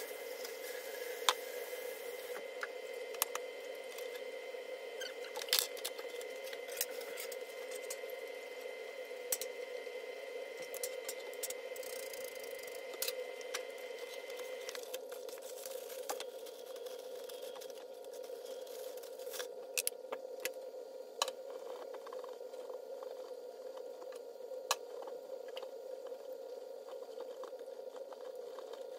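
Plantain slices sizzling steadily in a pan of oil, with scattered clinks and scrapes of a spoon and utensils against a glass mixing bowl.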